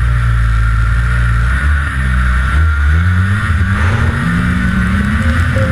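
Ski-Doo snowmobile engine running steadily, then revving up from about a second and a half in, its pitch rising and falling as the sled pulls away across grass.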